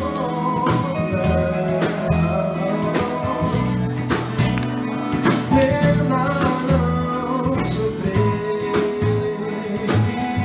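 Music: a song with a singing voice over guitar, a steady bass line and drums.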